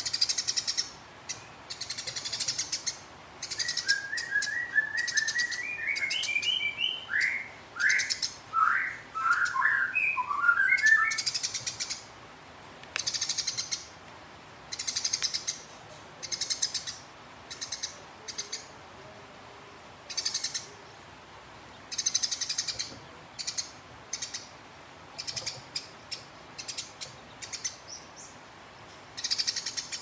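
A sparrow giving bursts of rapid, high-pitched chattering every second or two, with a run of lower, separate chirps from about four to eleven seconds in. This is the long, agitated fighting chatter that keepers play to provoke other birds into calling.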